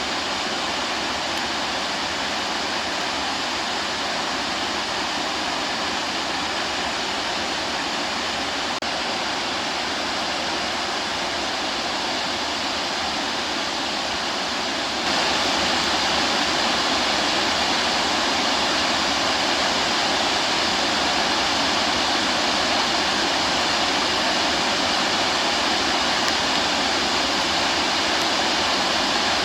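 Steady rush of falling water from a waterfall. It becomes louder and brighter abruptly about halfway through.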